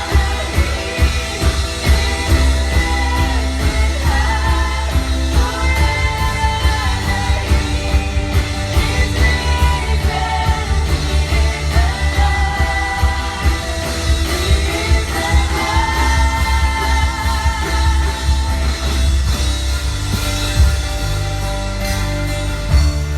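Live worship band playing a contemporary Christian worship song: a singer over electric guitar, bass and drums.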